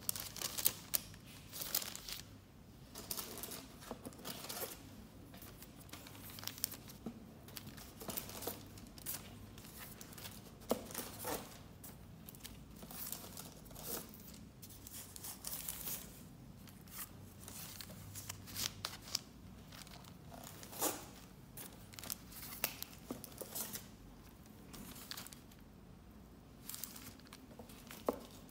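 Translucent paper sleeves rustling and crinkling in short, irregular bursts as they are handled, unfolded and slid around.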